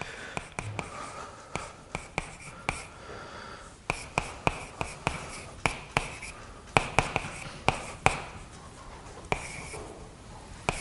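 Chalk writing on a blackboard: irregular sharp taps, roughly two a second, with short scratchy strokes between them as figures and symbols are written.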